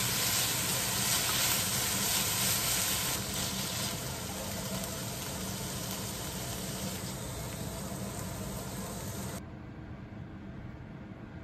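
Food sizzling in a hot frying pan: a steady hiss, loudest for the first three or four seconds, then a little quieter, with the high hiss cutting off abruptly near the end.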